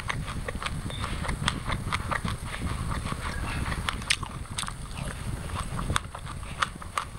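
Chewing a mouthful of white sesame seeds and passion fruit: a dense run of small crisp crunches and wet mouth clicks as the seeds are bitten.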